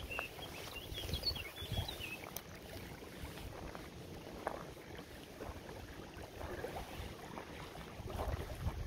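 Wind buffeting the microphone in uneven low gusts, with a few faint high chirps in the first couple of seconds.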